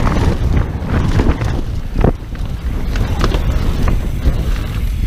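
Wind buffeting the microphone of a mountain bike's camera and the bike rattling over a rough dirt downhill trail at speed. A few sharp knocks come through, the loudest about two seconds in.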